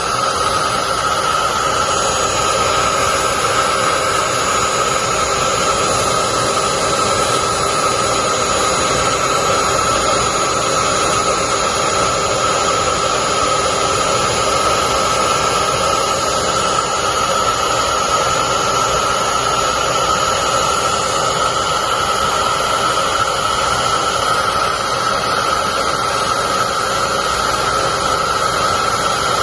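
Heat gun running steadily, its fan blowing hot air with a steady whine, heating a solder-seal heat-shrink connector until its solder melts and flows.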